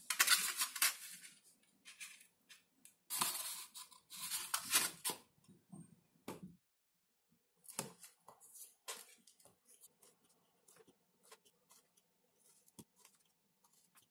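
Hand crafting work: two bursts of quick scratchy strokes, the first at the start and the second about three seconds in, then scattered light clicks and taps.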